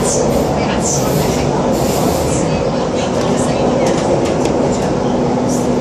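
MTR Kwun Tong Line C-train running through a tunnel, heard from inside the car: a loud, steady rumble of wheels on rail with a steady hum underneath. Scattered sharp clicks come in the middle.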